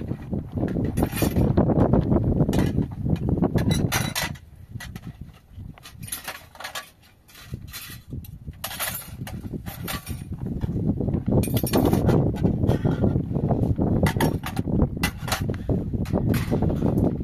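Metal pots and dishes clinking and knocking against each other as they are washed by hand in a basin, with wind rumbling on the microphone; the rumble drops away for a few seconds in the middle.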